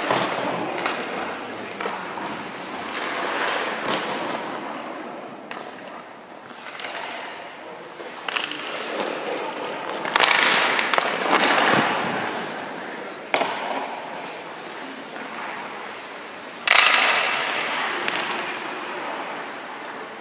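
Hockey goalie's skate blades scraping across the ice in repeated pushes and hard stops. Each is a sudden hiss of shaved ice that fades out, the loudest about halfway through and near the end, with a few sharp knocks in between.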